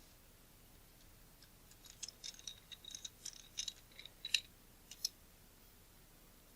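A quick run of small, light clicks and ticks from metal lens parts being handled and fitted together during reassembly, lasting about three seconds, with one last click about five seconds in.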